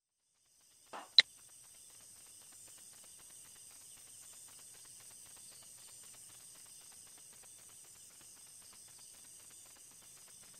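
A single sharp click about a second in, then a faint, steady, high-pitched chorus of crickets.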